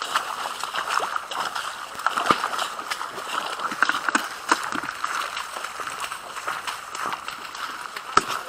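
Footsteps swishing and splashing through wet marsh grass and shallow water, an irregular run of steps and sloshes.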